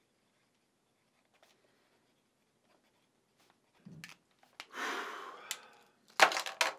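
Faint scratching of a pen on paper in a quiet small room, then a short thud, a soft rustle, and near the end a brief clatter of eyeglasses being set down on a wooden desk.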